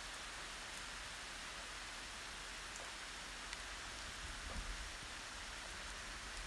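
Steady rain hiss with scattered faint drop ticks. A short low rumble swells about four and a half seconds in.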